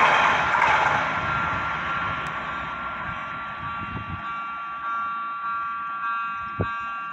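RENFE Class 599 diesel multiple unit pulling away, the rush of its passing fading over the first few seconds. Underneath, several steady high-pitched tones carry on, and from about halfway through they swell in a repeating pulse a little faster than once a second.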